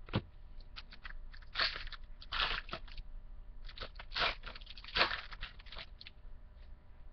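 Plastic wrapper of a 2013 Bowman baseball card pack crinkling and tearing as it is ripped open, in irregular bursts that stop about six seconds in.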